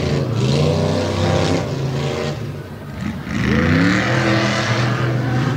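Modified off-road tough truck engine running hard on the race course, revs climbing near the start. It falls off about two and a half seconds in as the throttle is lifted, then climbs again and holds high.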